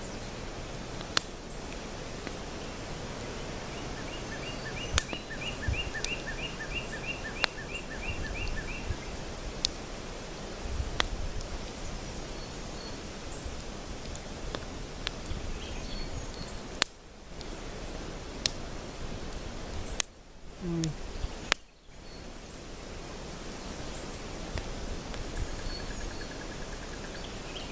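Steady outdoor background hiss with scattered sharp clicks. A run of quick, evenly repeated high chirps comes in about four seconds in and lasts about five seconds.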